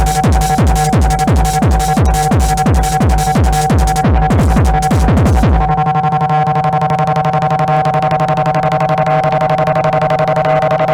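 Electronic dance music from a DJ set: a techno beat with a steady kick drum at a little over two beats a second. About halfway through the highs are filtered away and the kick drops out, leaving a held synth chord pulsing quickly.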